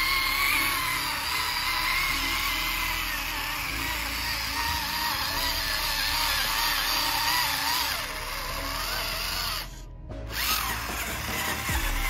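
Small electric gear motor of a home-built remote-control 4WD tractor model whining under load, its pitch wavering up and down, over background music. The sound briefly cuts out about ten seconds in.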